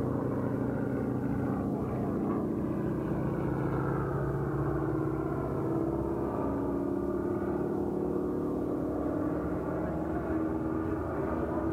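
Piston-engined propeller aircraft flying aerobatics overhead: a steady engine-and-propeller drone whose pitch slowly rises and falls as the plane manoeuvres.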